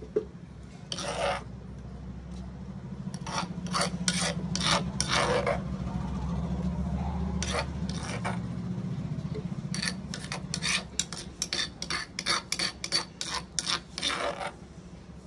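Pestle grinding almond paste in a stone dauri mortar: a steady rubbing grind that turns, about ten seconds in, into quick separate scraping strokes about three a second.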